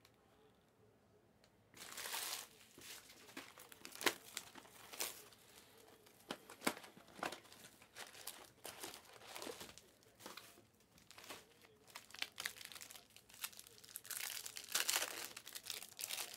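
Plastic trading-card pack wrappers crinkling and tearing open, with cards being handled; it starts about two seconds in as a busy run of crackles and sharp clicks, loudest near the end.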